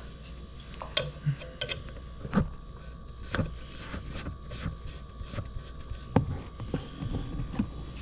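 Brass coupling of a refrigerant gauge hose being threaded by hand onto a piercing line tap valve on a refrigerator's suction line: irregular light metallic clicks and taps of the fittings being handled, over a steady low hum.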